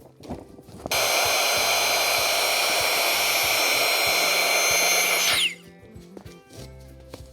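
A small high-speed motor starts about a second in and runs steadily with a rushing noise and a high whine. It winds down and stops near the end, leaving background music.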